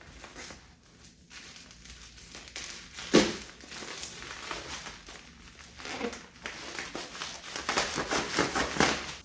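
Plastic packaging crinkling and rustling as items are handled and unwrapped, with one sharp knock a little over three seconds in.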